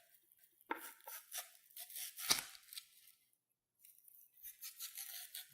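Dry onion skin scraping and crackling as an onion peeler's sharp hook scores the outer layer. There are a few short scratchy crackles, the sharpest about two seconds in, then a pause and soft rustling near the end.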